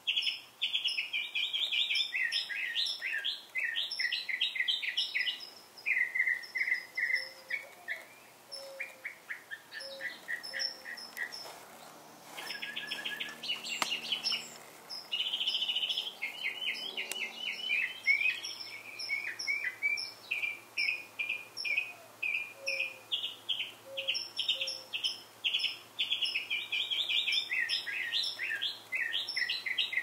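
Small songbirds chirping and trilling in quick runs almost without pause, with a soft low hum for a few seconds in the middle.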